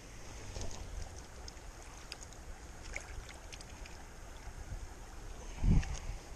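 Shallow creek running over stones, with scattered small clicks and knocks from movement on the rocky bank. A brief low thump on the microphone comes near the end.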